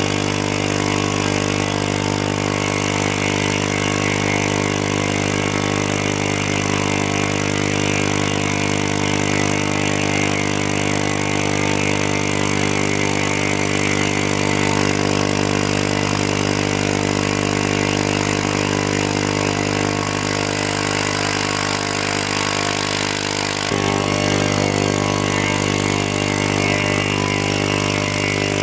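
A cheap 6040 CNC mill's spindle running steadily, a hum with a whine above it, as its end mill slowly cuts plywood. The tone shifts a little about 24 seconds in.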